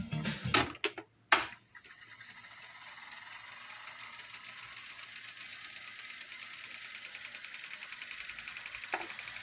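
TEAC X-7R reel-to-reel tape deck: tape playback stops and the transport clunks about a second in, then the reels fast-wind the tape with a steady mechanical whirr that grows slowly louder, with a fine even flutter. A short click near the end.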